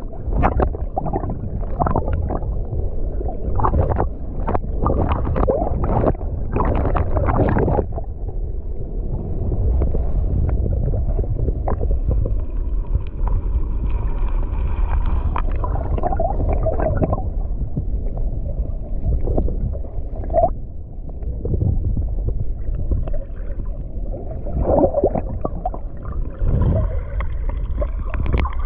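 Shallow seawater sloshing and gurgling around a GoPro Hero9 held just under the surface, heard through the camera as a dull, heavy underwater rumble. It is choppy with crackling splashes for the first several seconds, then settles to a calmer rumble with a few short pops.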